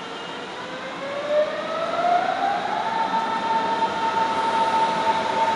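Berlin S-Bahn class 481/482 electric train pulling away: its traction drive gives a whine of several tones that climbs in pitch for about two seconds as the train gathers speed, then holds a steady pitch.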